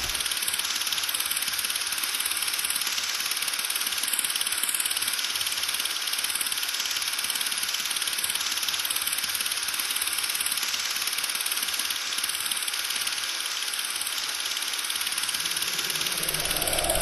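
Steady hiss, strongest in the treble and with little low end, running evenly throughout; a low rumble comes in near the end.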